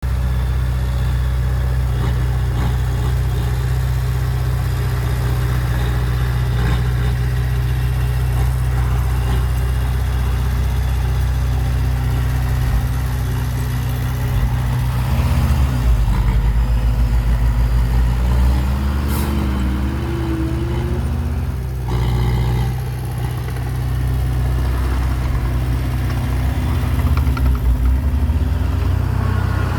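Heavy construction vehicle's diesel engine running steadily, revving up with a pulsing beat about halfway through and again near the end.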